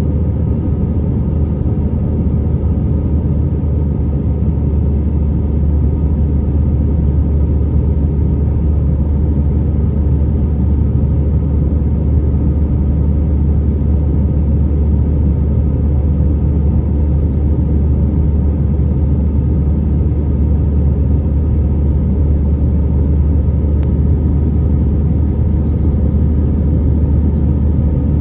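Airbus A320 cabin noise heard from a window seat: a steady, loud low rumble of the jet engines and airflow, holding level with no spool-up or change.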